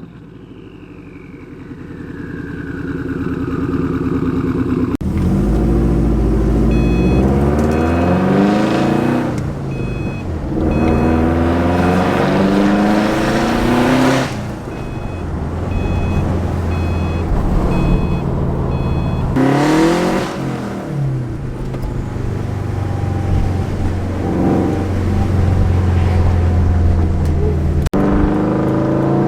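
Subaru WRX with a Tomei titanium exhaust, accelerating hard: the engine note climbs and falls back several times as it revs and shifts, with abrupt jumps between takes.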